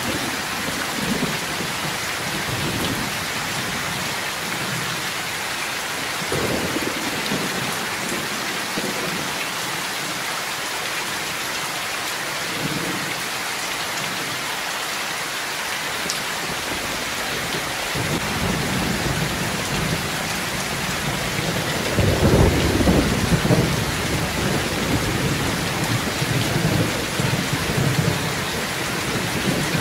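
Heavy rain pouring steadily, with low thunder rumbling several times: a couple of soft rolls in the first half, then a longer, louder roll building from about eighteen seconds in.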